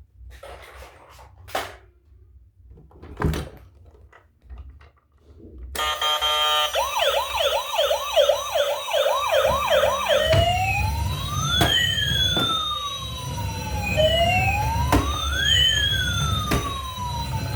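A few handling clicks, then a battery-powered toy vehicle's electronic siren switches on about six seconds in. It starts with a fast warbling yelp, and from about ten seconds it changes to a slow rising-and-falling wail.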